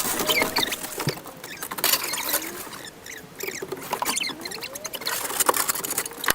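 Snow being scraped and cleared off a patio, played back sped up: a rapid, uneven run of scrapes and clicks, with a few short squeaky glides in pitch.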